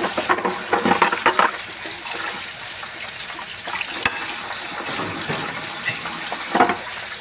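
Kitchen tap running steadily into a sink, with clattering knocks of things handled in the sink in the first second and a half and again near the end.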